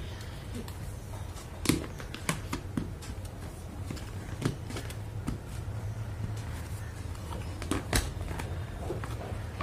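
Hard plastic toy kitchen parts clicking and knocking against each other as a panel is handled and pushed into place. Scattered sharp clicks, the loudest about two seconds in, midway and near the end.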